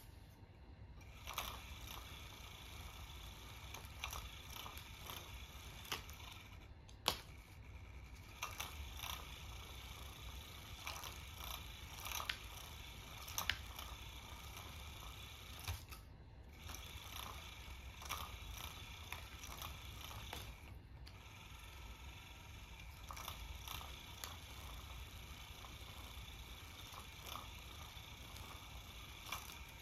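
Small motor of a battery-powered cat toy running with a faint whir, cutting out briefly a few times, with scattered sharp clicks and taps as the feather wand is moved and batted.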